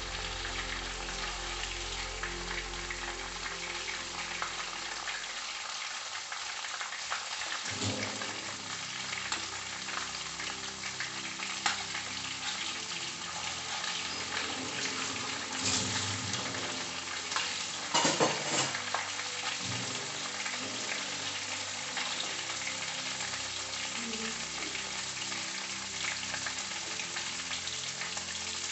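Marinated chicken tikka pieces sizzling steadily as they shallow-fry in oil in a pan. A metal spoon scrapes and knocks against the pan now and then as the pieces are turned and lifted out, loudest a little past halfway.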